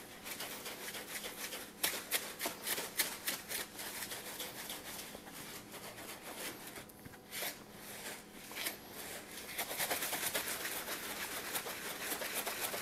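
Homemade dry rub of kosher salt, coarse black pepper, granulated garlic and chipotle chili powder sliding and rattling inside a large plastic shaker bottle as it is shaken to mix: a grainy swish of repeated strokes that eases off briefly a little past halfway and picks up again near the end.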